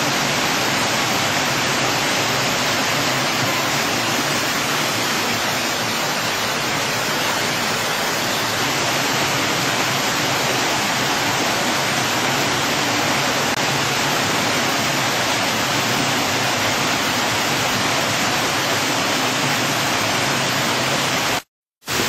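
Rainwater runoff rushing and splashing down flights of stone steps in a steady, loud torrent. It cuts out for a moment near the end.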